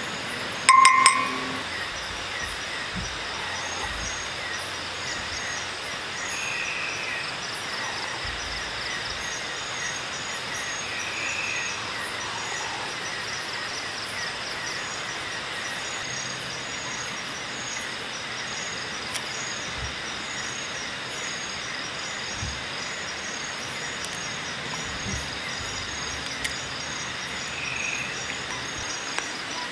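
Night rainforest ambience: the steady rush of a nearby river under insects chirping in rapid, evenly repeating pulses, with three short higher calls now and then. A brief ringing note sounds about a second in.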